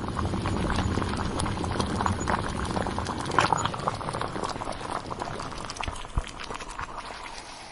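Sound effect of a pot boiling, a steady rolling bubble with many small pops, fading out near the end.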